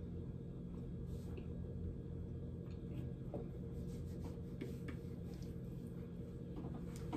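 Quiet eating: soft chewing of cookies and faint small clicks from handling them, over a steady low hum.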